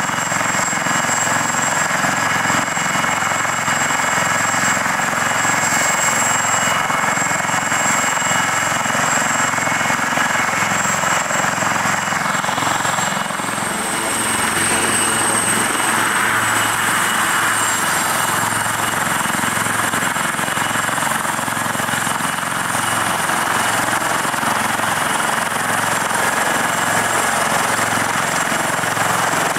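AW159 Wildcat helicopters running with rotors turning: a steady high turbine whine over the even beat of the main rotor. About halfway through, the whine shifts to a higher tone that rises slightly.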